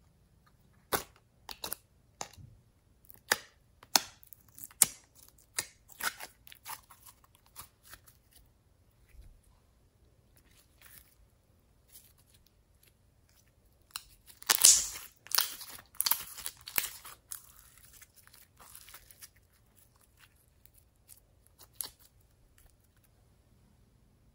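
Sticky pink glitter slime being handled and stretched, with sharp crackles and pops as it pulls apart. The pops are scattered through the first several seconds; the loudest, densest run of crackling comes about fifteen seconds in.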